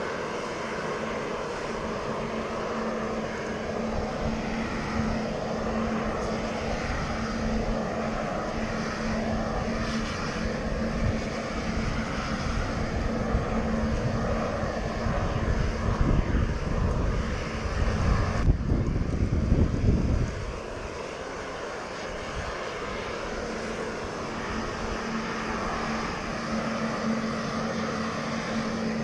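Hose-fed propane shrink-wrap heat gun running with a steady roar and a steady hum as its flame is played over plastic boat shrink wrap to tighten it. A louder stretch of low rumbling comes from about 16 to 20 seconds in.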